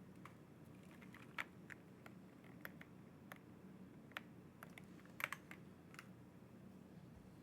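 Typing on a Monsgeek M1 v3 mechanical keyboard with Akko V3 Cream Purple Pro switches, a polycarbonate plate and KAT Operator keycaps. Soft keystrokes come at an irregular pace, with a few louder ones about a second and a half, four and five seconds in.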